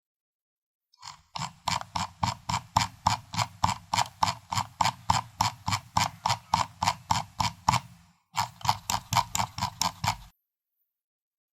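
Computer mouse scroll wheel turned notch by notch, giving an even run of clicks at about four a second, starting about a second in, pausing briefly near 8 s, then clicking on for two more seconds before stopping.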